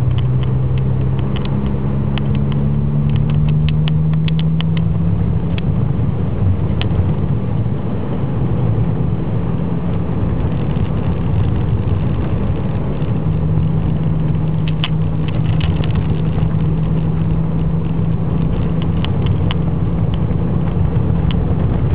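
Car engine and road noise heard from inside the cabin while driving on a snow-covered road, with a steady rumble. The engine hum rises slightly over the first few seconds. Scattered light ticks and crackles come through in two clusters, near the start and in the second half.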